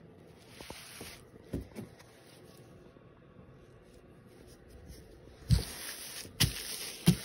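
Handling noise: a mesh basketball jersey rustling as it is moved about close to the microphone. A few short dull knocks come through it, one about a second and a half in and three in the last two seconds, the loudest near the end.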